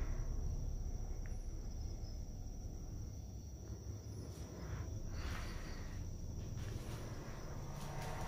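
Steady high-pitched chirring of night insects, over a constant low rumble of handling noise, with a few soft footsteps on the concrete floor.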